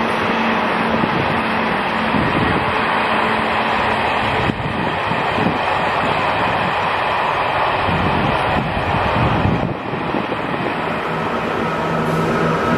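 Locomotive-hauled train passing, a loud steady rumble of engine and wheels on the rails.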